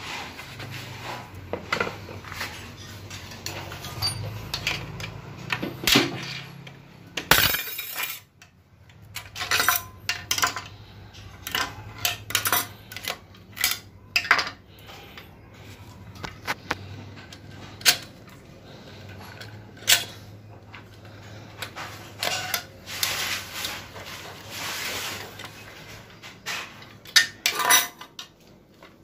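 Steel tools and metal transmission parts clinking, knocking and scraping against each other as a Toyota Soluna automatic transmission is dismantled: screwdrivers prying at clutch packs and snap rings inside the case. The sharp, irregular clinks come throughout, over a steady low hum.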